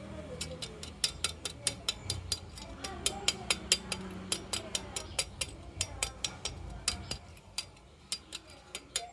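Marbles clicking and clattering along a marble run, a fast, irregular stream of sharp ticks as they hit track pieces and each other.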